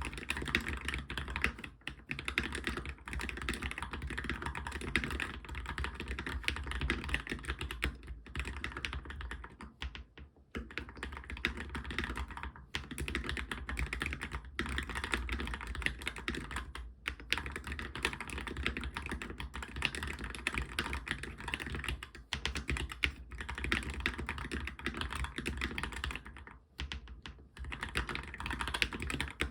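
Fast, continuous typing on a Monstargear MK308 mechanical keyboard with optical switches, fully lubricated, with brief pauses every few seconds.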